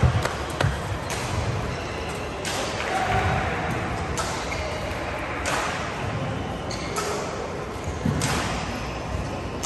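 Badminton racquets striking shuttlecocks on the surrounding courts: scattered sharp smacks about once a second, each ringing on briefly in the large hall.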